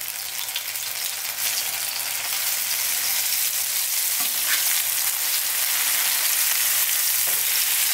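Zucchini and feta fritters sizzling in hot oil in a non-stick frying pan on high heat, a steady hiss that grows louder as more patties go into the pan.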